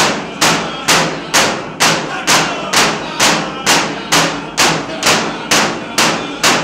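Yup'ik frame drums struck in unison with thin sticks, a steady beat of about two sharp strikes a second, with voices singing along.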